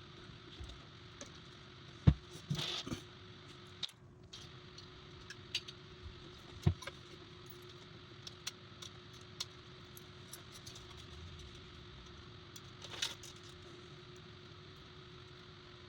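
Metal spring clips clicking and scraping against a CPU heatsink as a fan is clipped onto it: scattered light clicks and taps, the sharpest about two seconds in, over a faint steady hum.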